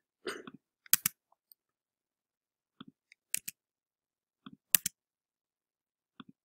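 Computer mouse clicks and Tab-key presses on a keyboard, each a quick press-and-release double click. Fainter pairs alternate with louder ones about every second or two.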